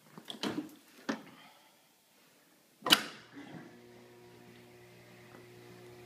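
Wooden kitchen cabinet door being handled: a few short knocks and rubs in the first second, then a sharp bang as the door shuts about three seconds in. A steady low hum sets in just after.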